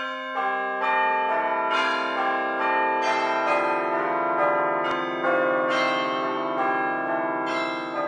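Background music of bell-like chiming notes, each ringing on and overlapping the next in a slow melody.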